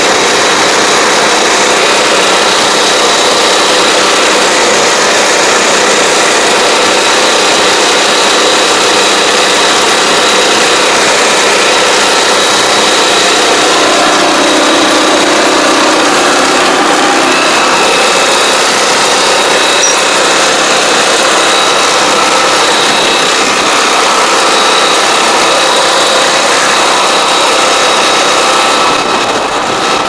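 Small engine of a riding crop sprayer (AP1) running steadily as it drives along the rows spraying pesticide.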